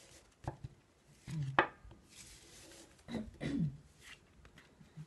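A deck of tarot cards being handled: a few sharp taps of the deck against the table, the loudest about a second and a half in, with a soft sliding rustle of cards.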